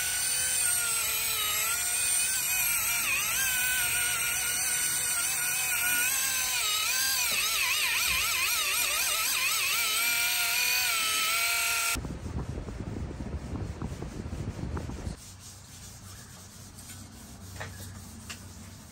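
Cordless power tool spinning a blue foam polishing pad with buffing compound against an aluminium truck wheel: a steady motor whine whose pitch wavers up and down as the pad is worked over the rim. It stops abruptly about twelve seconds in, followed by a brief low rumble and then a much quieter background with a few faint clicks.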